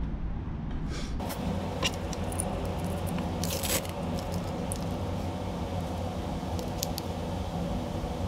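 Small metal burrs for a rotary tool clicking and rattling as they are picked out of their plastic holder, with a short cluster of clicks about three and a half seconds in. A steady low hum runs underneath.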